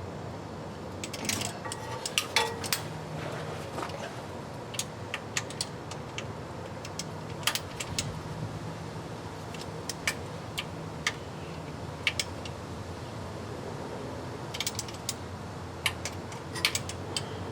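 Hand ratchet clicking in short, irregular spells, with light metal clinks, as the bolts of a transmission oil pan are tightened.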